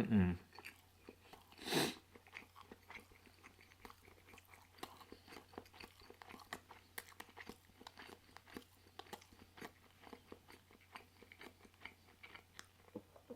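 Close-up chewing and biting of a soft pulled pork sandwich: many small mouth clicks and smacks, with one louder mouth sound about two seconds in.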